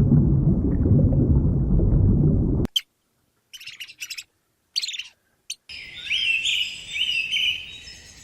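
A loud, low, rough animal sound that cuts off abruptly under three seconds in, followed by scattered high bird chirps and then a songbird singing a run of quick sliding notes.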